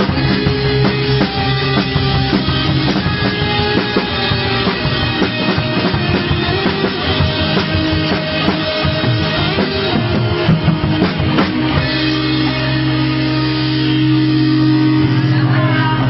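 Rock music on drum kit and electric guitar, played hard with busy drumming. About twelve seconds in the drums drop out and held guitar chords ring on.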